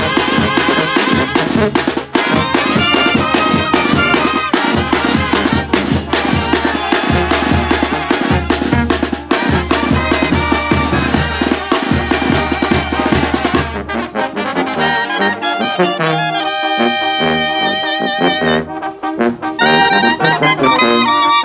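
Mexican banda (brass band) playing: trumpets and trombones over a tuba bass line and a drum beat. About two-thirds of the way in, the bass and drums drop out, leaving the horns playing on their own.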